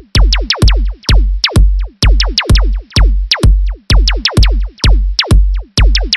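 Electronic dance music from a Sylenth1 synthesizer preset: a steady four-on-the-floor kick drum about twice a second, with a pitched synth zap that drops sharply in pitch about four times a second.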